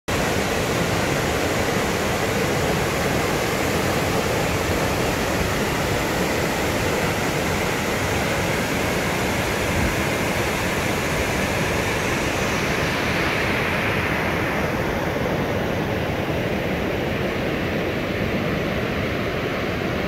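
Mountain stream rushing over boulders in white-water rapids, a steady rush of water.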